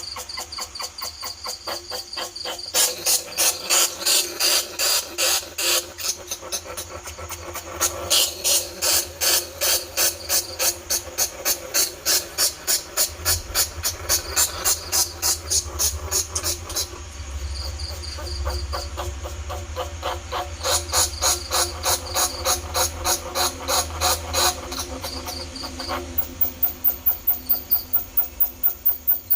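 Greater bandicoot rat squeaking: rapid trains of sharp, high squeaks, several a second, in bouts with short lulls between them.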